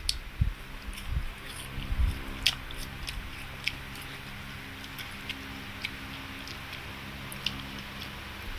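A toddler biting and chewing crisp pear slices, with small sharp crunching clicks scattered through.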